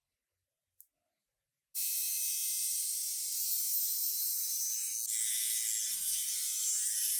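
A few faint clicks, then a steady high hissing, rasping mechanical noise starts suddenly about two seconds in and runs on, growing fuller about five seconds in.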